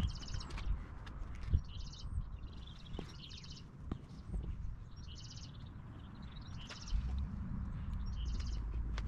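A songbird singing short trilled phrases, repeated every second or two, over a low rumble, with a few sharp knocks near the start.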